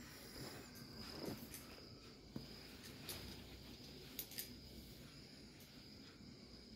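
Quiet room with a faint, steady high-pitched tone. Over it come a few soft taps and rustles as betel leaves and small puja items are set down by hand.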